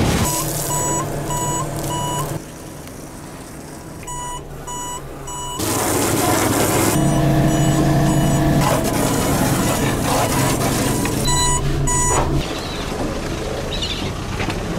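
Electronic beeper sounding short, evenly spaced high beeps, about two a second in short runs, over a steady engine running.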